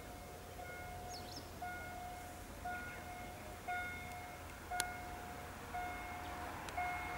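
Level-crossing warning signal beeping, a steady pitched tone about once a second, each beep about half a second long. The approaching railbus is faintly audible underneath, growing louder near the end.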